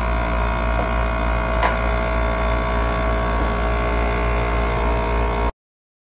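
Air conditioner condensing unit running, its compressor forced on through the contactor while the liquid-line valve is closed to pump the refrigerant down into it: a steady hum with several steady tones. One sharp click comes about a second and a half in, and the sound stops dead about five and a half seconds in.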